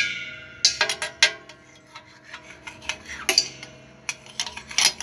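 A metal spoon scraping and knocking dried dough crust off the stainless-steel bowl rim of a dough mixer. It strikes several sharp metallic clinks that ring briefly, with scraping between them.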